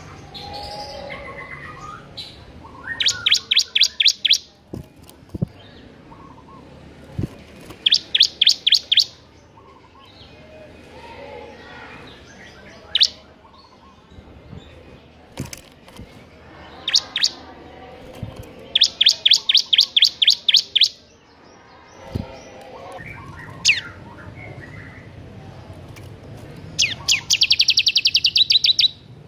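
Caged bar-winged prinia (ciblek) singing in its 'ngebern' style: four bursts of rapid, high, evenly repeated chirps, each lasting one to two seconds, with single sharp chirps in between. The last burst, near the end, is the fastest.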